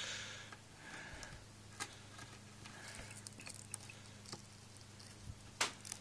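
Faint scraping and a few light clicks, the sharpest near the end, as a hobby knife cuts at the stiff, diesel-hardened sheathing of a 4-gauge battery cable. A steady low hum runs underneath.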